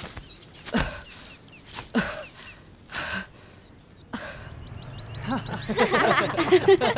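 A man's heavy, pained exhales, four of them about a second apart, with small birds chirping. From about five seconds in, several people's voices and chuckling come in.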